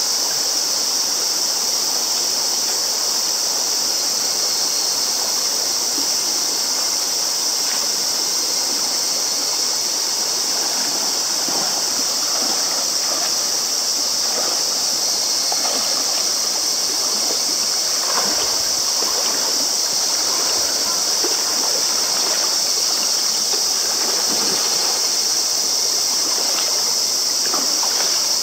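Shallow river running over rocks: a steady, even rush of water, with light splashing from a person wading through the current.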